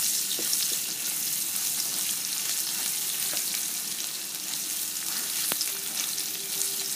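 Chopped onion frying in hot oil with tempering spices: a steady sizzle, with a few light ticks as it is stirred in the pan.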